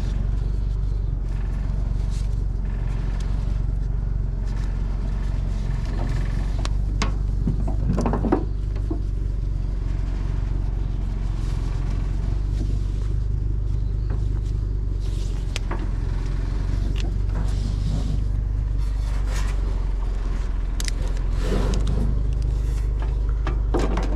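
A vehicle engine running steadily, with scattered knocks and rattles, one about eight seconds in and several near the end.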